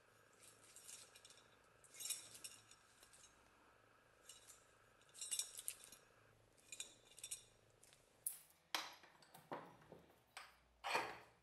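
Faint metallic clinks and scrapes as a rusty hatchet is handled and turned over, then a few louder knocks and scrapes near the end as it goes into a bench vise.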